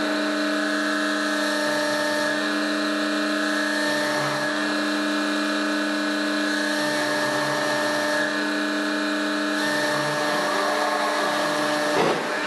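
Industrial winch motor running steadily with an even whine while it pays out wire rope to lower a suspended load. A brief knock near the end.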